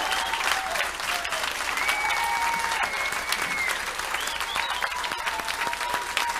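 Audience applauding steadily, with a few long high-pitched calls over the clapping.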